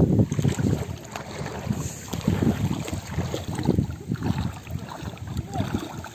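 Wind buffeting the microphone in irregular gusts, loudest in the first second.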